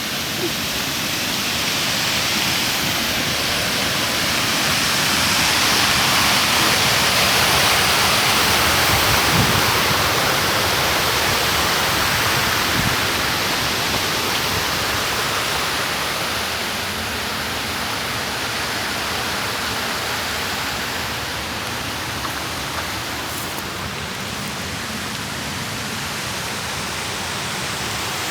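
Steady rushing of running water, swelling to its loudest over the first ten seconds and easing off after.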